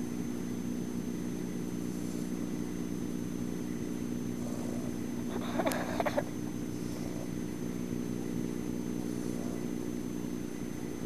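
Labrador puppy snoring softly in its sleep, a faint breath about every two seconds, over a steady low hum. A brief louder noise comes just over halfway through.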